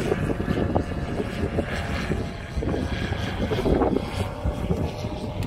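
Small propeller plane flying low overhead, its engine making a steady drone.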